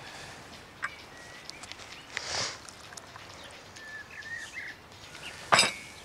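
Quiet garden ambience with a bird calling briefly, a few small clicks of crockery being handled, and a sharp ringing clink of china on china near the end.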